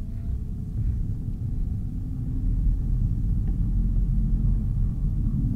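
Steady low rumble inside the cabin of a Pipistrel Velis Electro, a two-seat electric trainer airplane, on the ground shortly before takeoff.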